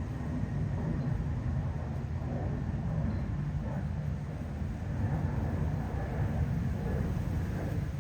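Honeybee colony buzzing at the hive: a steady, dense low hum.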